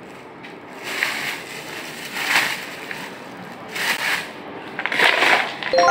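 Wood-pellet cat litter rattling in a plastic slotted litter scoop as it is shaken to sift it, in four short bursts.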